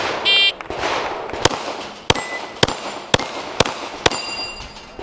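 Shot-timer start beep, then a Glock 17 9mm pistol firing six shots about half a second apart at a steel plate rack. Several shots are followed by the brief ring of a struck steel plate.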